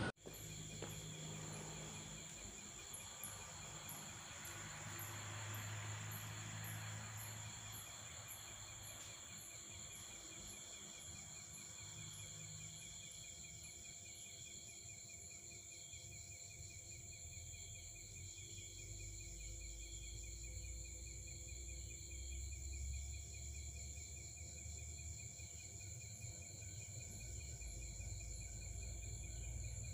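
Night insects, crickets among them, trilling steadily in a faint chorus of several even high-pitched tones, with a run of quick high chirps in the first several seconds. A low rumble sits underneath in the second half.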